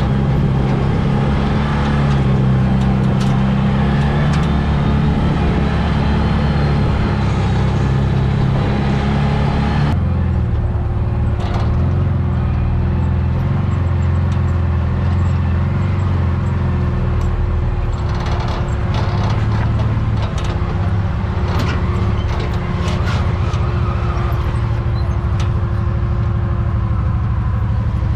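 Side-by-side UTV engine running under way on a rocky trail, with scattered knocks and rattles. Its pitch changes suddenly about ten seconds in.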